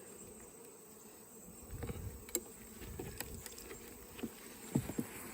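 Honeybees buzzing steadily around an open hive, with a few light clicks and knocks from the wooden frames being pried apart.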